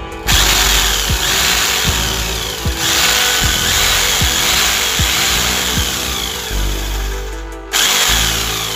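HM0810T 5 kg electric demolition hammer test-run after servicing, its motor and gearing running with the grease cap off, with a couple of brief dips. It cuts off suddenly near the end. The run is smooth, a sign the reassembly is sound.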